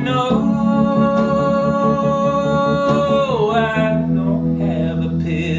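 A man singing a long held "no" at a steady pitch that slides down near the end, over sustained Wurlitzer electric piano chords. The chord changes about four seconds in.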